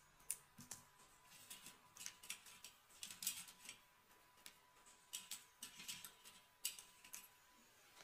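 Hands touching and handling braided hair: irregular short, crackly ticks and rustles, coming in uneven clusters.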